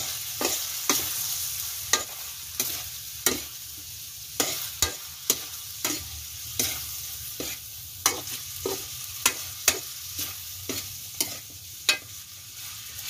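A metal spatula scrapes and clacks against a metal wok about twice a second as squid pieces are stir-fried, over a steady high sizzle. The pan is nearly dry.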